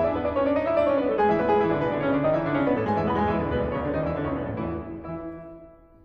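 Background piano music that fades out over the last second or two.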